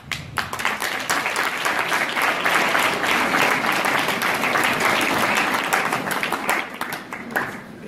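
Audience applauding, a dense stretch of clapping that starts at once and dies away near the end.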